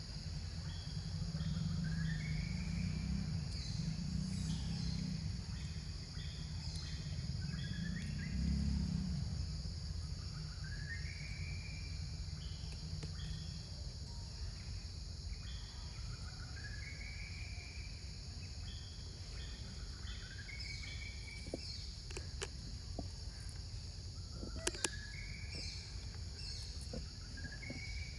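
Tropical forest ambience: insects droning steadily in a high band while a bird repeats a short rising whistled call every few seconds. A low rumble runs through the first half, and a few sharp clicks come near the end.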